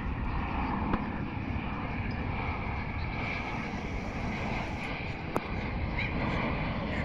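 Steady low rumble and hiss of outdoor background noise, with a sharp click about a second in and another about five seconds in.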